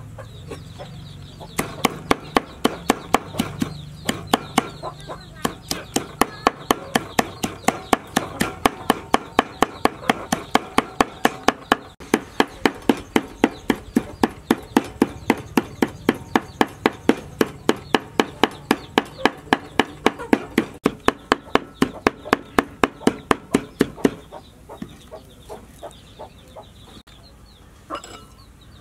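Heavy cleaver chopping soaked dried red chillies on a wooden chopping board, fast even strokes about three a second, mincing them to a paste. The chopping stops a few seconds before the end, followed by a single knock.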